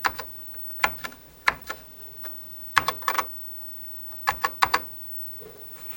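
Keys being typed on a TRS-80 Model III computer keyboard: sharp clicks in short bursts of two to four strokes, then a pause of about a second near the end.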